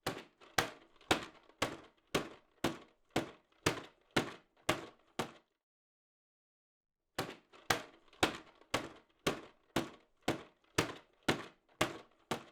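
Sharp knocks repeated at a steady pace of about two a second, in two runs of about five seconds with a short pause between.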